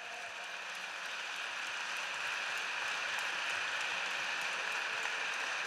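Audience applauding, a steady clapping that swells slightly during the first couple of seconds.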